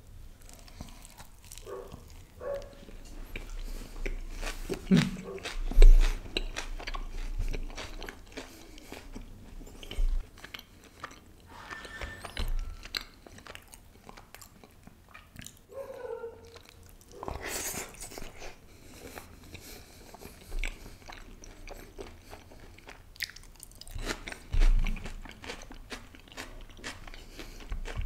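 Close-miked eating of butter naan and butter chicken with raw onion: wet chewing, smacking and crunching, with a few louder low knocks, the loudest about six seconds in.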